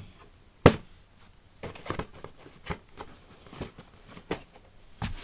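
DVD gift box set being handled and turned over: a sharp knock about a second in, then a string of softer taps and rustles.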